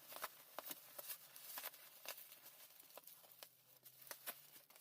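Faint, scattered light clicks and rustles of parcel packaging being handled, about a dozen small ticks spread out in near quiet.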